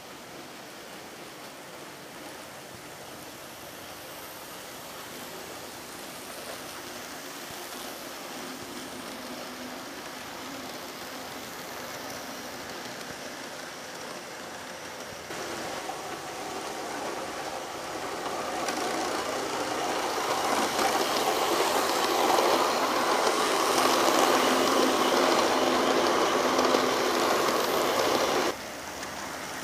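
Six-coach model DART electric train running on model railway track: a steady whirring of its motor and wheels on the rails that grows louder as it comes closer. The sound jumps louder about halfway through and drops suddenly near the end.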